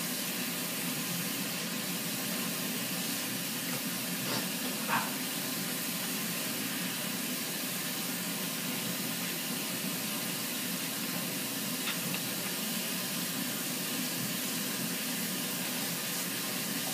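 Bathroom sink faucet running a steady stream of hot water over hands held under it, with a faint click about five seconds in.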